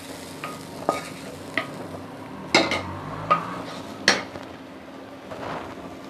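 Wooden spatula scraping around a nearly empty nonstick kadai, knocking sharply against the pan several times, with the loudest knocks between about two and a half and four seconds in.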